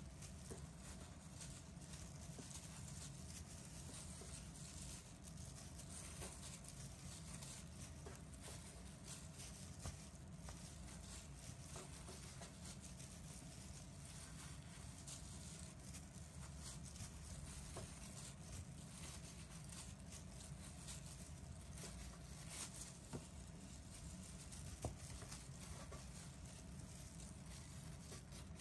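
Faint soft taps and plastic-glove rustling as chiffon cake slices are laid one by one on a metal baking sheet, with a few sharper clicks, over a steady low hum.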